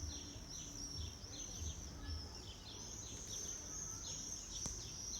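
Small birds chirping continuously: many short, high, overlapping chirps, several a second, with a single sharp click about four and a half seconds in.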